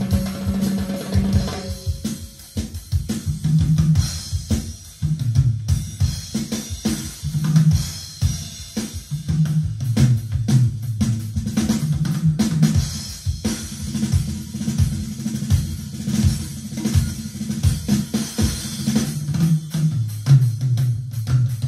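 Recorded music with a full drum kit (kick, snare and cymbals) over a low, moving bass line, played back through a valve power amplifier and floor-standing loudspeakers.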